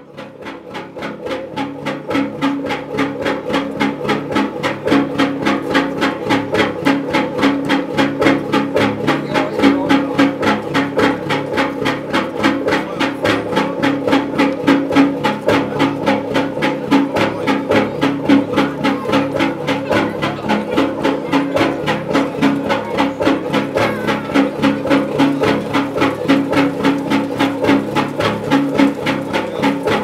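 1954 Union two-cylinder semi-diesel (hot-bulb) engine of a wooden fishing cutter, running with a steady, regular knocking beat over a constant hum. It grows louder over the first few seconds.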